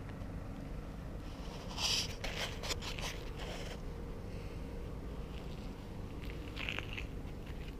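Handheld camera and jacket rustling, a cluster of short crackly scrapes about two seconds in and a smaller one near the end, over a steady low outdoor rumble.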